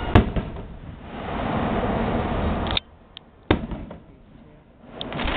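An aerial firework shell bursting with one loud sharp bang just after the start, amid a dense rumbling of other fireworks. The noise drops away abruptly near the middle, with a single sharp crack, and builds again near the end.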